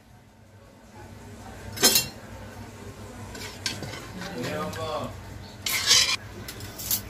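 Metal ladle stirring beef stew in an aluminium pressure cooker, scraping and knocking against the pot with a sharp clink about two seconds in and more clinks around six seconds and near the end.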